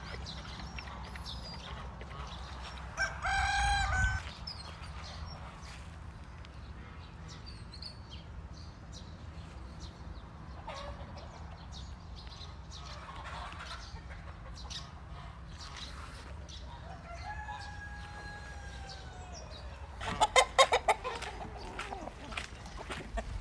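A rooster crowing, with a long falling call near the middle and a shorter one early on. Near the end comes a loud, quick burst of repeated sharp fowl calls.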